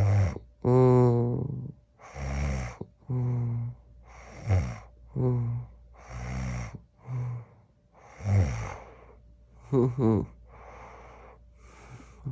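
A man moaning in his sleep: about a dozen low, drawn-out groans, some falling in pitch, with rough breaths between them, dying down to quiet breathing near the end. The moaning comes in place of his usual snoring while he runs a fever after a vaccine shot.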